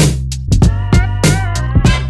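Background music with a steady drum-machine beat over a bass line.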